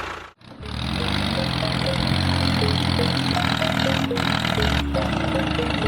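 Small motor running steadily after a brief cut-out about half a second in, its pitch wavering at first and then settling, with a faint repeating pattern of short notes underneath.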